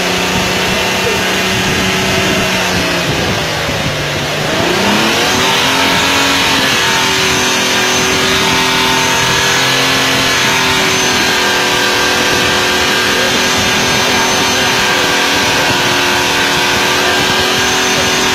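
An engine running steadily; its pitch dips and then climbs back about four seconds in, then holds level.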